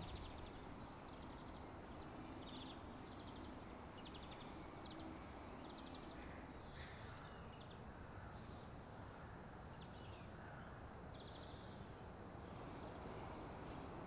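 Faint outdoor background noise with small birds calling: short rapid trills repeated every second or so, and a few higher chirps.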